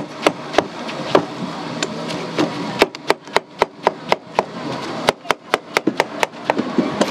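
Long knife chopping peeled watermelon on a wooden cutting board: a series of sharp knocks of the blade hitting the board. They are spaced out at first, then come in quick runs of about four chops a second.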